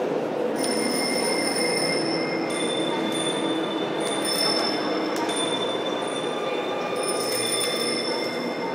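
Soundtrack of a video installation: a steady dense rumble overlaid with thin high whistling tones that switch on and off every second or two, and a few sharp clicks.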